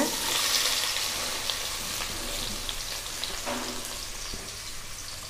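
Chopped onion dropped into hot oil in a kadai, sizzling loudly at first and dying down gradually, with a few faint crackles.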